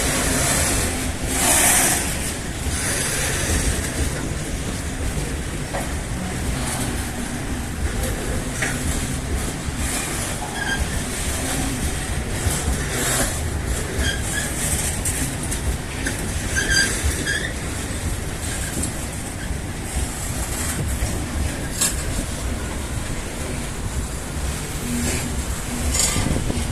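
Freight train loaded with bauxite ore rolling past with a steady heavy rumble and wheel clatter, with short high squeals from the wheels several times through the middle.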